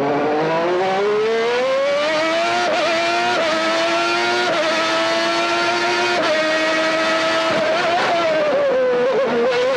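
Honda V12 engine of the 1991 McLaren MP4/6 Formula 1 car at full throttle on a qualifying lap, heard from onboard. Its high scream climbs in pitch, then shifts in quick small steps at each gear change, holds near the top, and wavers and dips briefly near the end.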